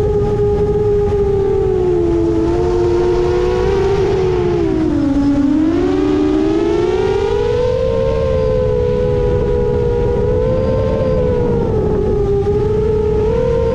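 A 7-inch FPV quadcopter's motors and three-blade propellers whining in flight. The pitch sinks about five seconds in as motor speed drops, then climbs back and wavers with the throttle.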